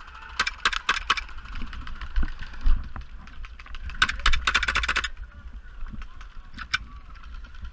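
Airsoft guns firing in rapid strings of sharp shots: a short string about half a second in, a longer fast string around four seconds in, and a single shot near seven seconds, over a steady low rumble.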